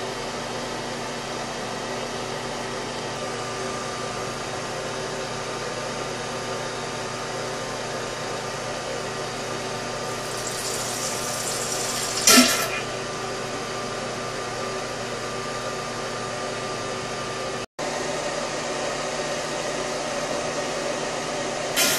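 A fan's steady hum with a few steady tones underneath. A short loud noise, led in by a rising hiss, breaks in a little past halfway, and the sound cuts out for an instant near the end.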